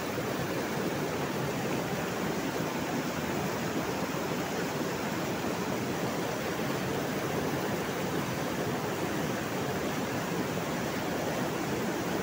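Dirty backwash water from a rapid sand filter spilling over the weir edges of the concrete wash-water troughs and splashing down in a steady rush.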